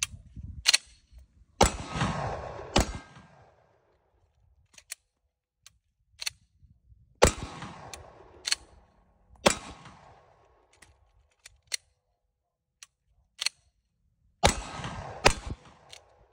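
Glock 45 9mm pistol shots, about eight loud reports in three quick groups, each ringing out briefly. Between the groups come quieter clicks and handling noises as snap caps mixed into the magazines stop the pistol and it is cleared or reloaded.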